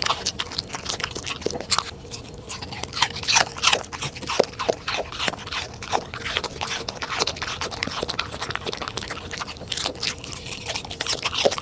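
A corgi chewing crunchy food, with quick, irregular crunches several times a second.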